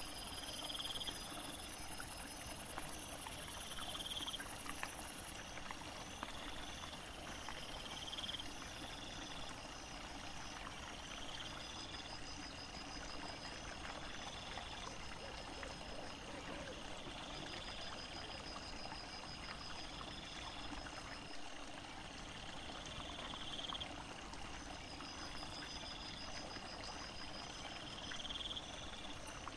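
Woodland night ambience: a small stream trickling steadily, with insects calling in short high pulsed trills that repeat about every two seconds.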